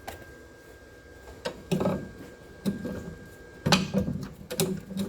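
Short bursts of MIG welding, several in a row about a second apart, tacking a new locator lug onto a steel front cross member.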